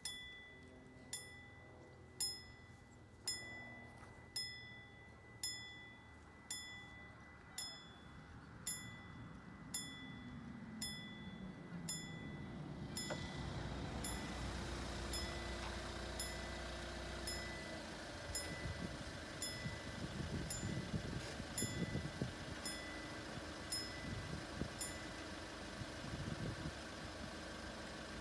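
Level-crossing warning bell striking about once a second, a single ringing ding each time, sounding while the red lights show and the barriers come down. From about halfway a vehicle engine comes up underneath and keeps running.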